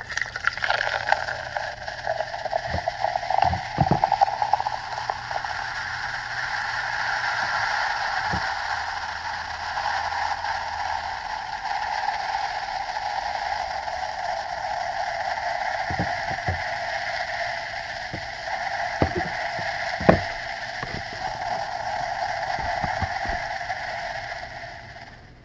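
Carbonated soda fizzing steadily, with scattered small clicks and taps through the fizz. The loudest click comes about twenty seconds in.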